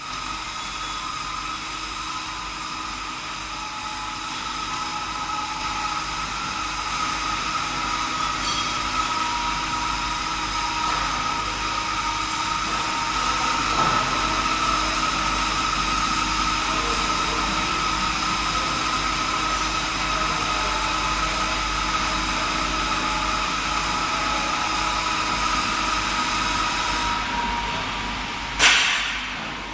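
Large-format CO2 laser fabric-cutting machine running: a steady mechanical hum with several high, steady whining tones from its motors and fans. The tones drop away near the end, and a short, sharp noise follows.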